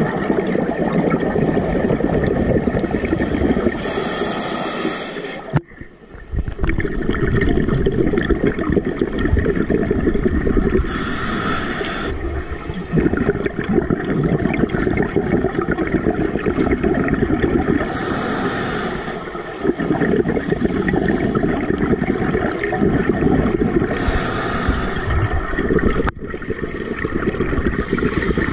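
Scuba diver breathing through a regulator underwater: a short hiss on each inhale, about every six to seven seconds (four times), each followed by a long gurgling rush of exhaled bubbles.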